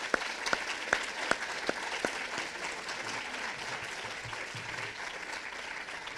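Audience applauding, with several louder individual claps close by in the first two seconds.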